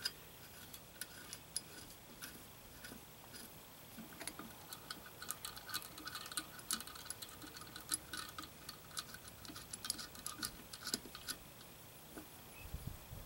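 Light metallic clicking and ticking of a combination wrench working a nut on a makeshift puller plate, many small irregular clicks that come thickest through the middle.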